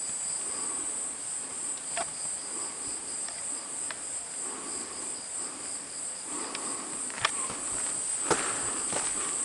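Insects trilling steadily in a high, continuous chorus, with a few sharp taps in the second half.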